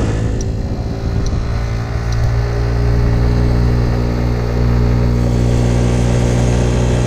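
Small motor scooter's engine running at a steady, fairly high pitch while riding along. Faint ticks about once a second in the first couple of seconds.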